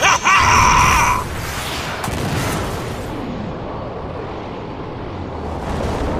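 Animated energy-blast and explosion sound effects: a high ringing whine over a blast for about the first second, then a long explosion rumble that dies down and swells again near the end.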